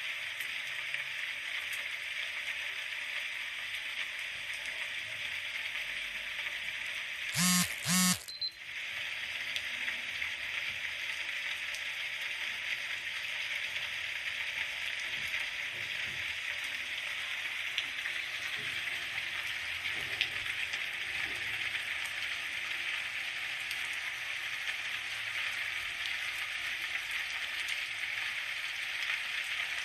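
Steady rainfall, an even hiss of drops. About seven seconds in, two short loud pitched sounds cut through it, about half a second apart.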